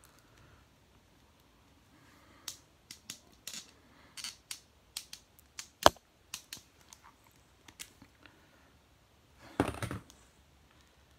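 Plastic action figure being handled and posed by hand: a run of sharp clicks and taps, with one louder snap about halfway, then a short clatter of knocks near the end.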